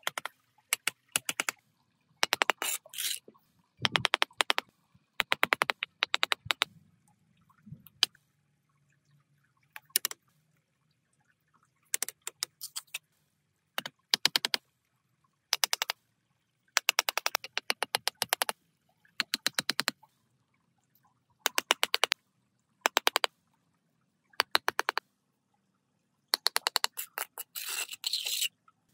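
Repeated bursts of rapid sharp clicking and scraping, each lasting about a second, separated by short pauses, with a faint low hum underneath from a few seconds in.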